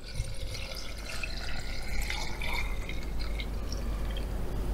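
Half a litre of 40% vodka poured in a steady stream into a jar of boiled walnut scales, slowly getting louder as it fills.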